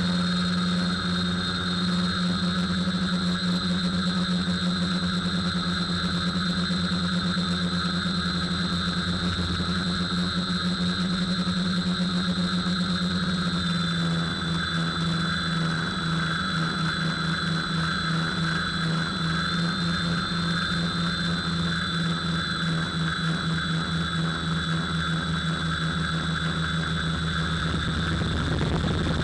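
Steady high whine and hum of an FPV drone's electric motor and propellers running in flight. The pitch drops slightly about halfway through.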